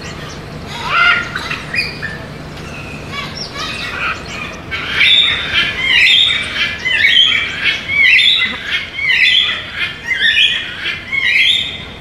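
Blue-and-gold macaw calling: a few short calls about a second in, then from about five seconds in a run of loud squawks, roughly one a second.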